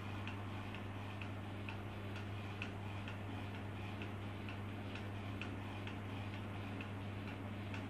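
Motorised Rockwell hardness tester holding and then releasing its test load on a hardened knife blade: a steady low electrical hum with faint ticks about once a second, not quite evenly spaced.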